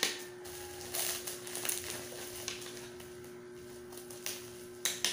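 Bubble wrap crinkling and rustling in the hands as a parcel is unwrapped, in uneven bursts: one at the start, a couple around a second or two in, and a sharp one near the end. A steady hum runs underneath.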